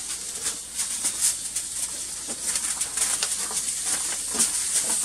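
Birds calling, over a steady hiss scattered with short irregular clicks.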